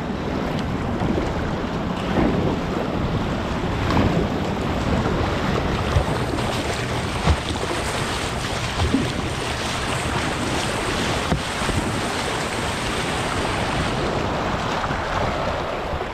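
Rushing whitewater of a class II river rapid heard from a kayak, with wind buffeting the action camera's microphone and paddle strokes splashing. A couple of sharp hits stand out about six and seven seconds in.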